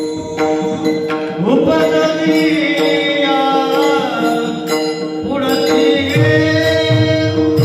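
Warkari kirtan chal: a male voice sings a slow, gliding devotional melody over a steady drone, entering with a rising slide about a second and a half in. Mridang (pakhawaj) drum strokes drop out in the middle and come back near the end.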